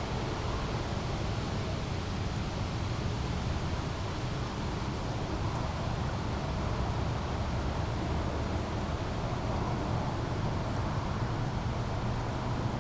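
A small brook flowing steadily, over a low, even rumble.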